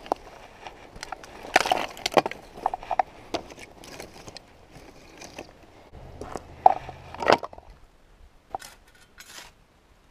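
Rotten, punky deadwood being broken apart by hand: sharp snaps in two clusters, about two seconds in and again about seven seconds in, with a few quieter snaps near the end.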